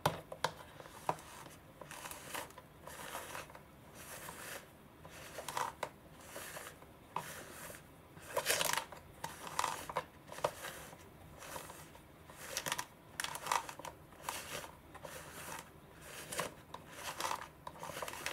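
Plastic rollers and knobs of a hand-turned Kururin Macky sushi roll maker being worked by hand: repeated short rasping scrapes and sharp clicks, irregularly spaced, several times a second at the busiest moments.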